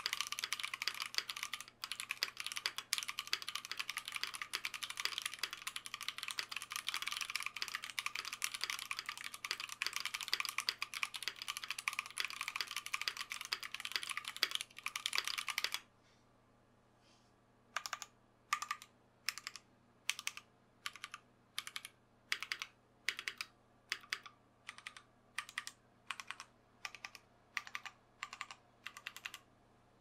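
Klippe T mechanical keyboard with lubed Tecsee Purple Panda tactile switches, a brass plate and PBT keycaps, typed on quickly and continuously for about half the time. Then, after a short pause, single keys are pressed one at a time, about two clacks a second.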